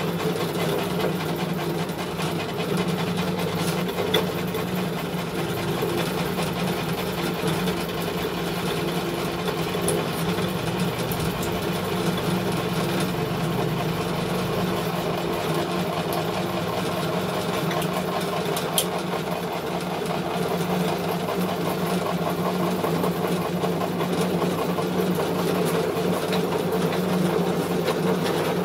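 Small animal-feed pellet mill running steadily with a constant hum, pressing a pig-feed mix into pellets, with an occasional faint click.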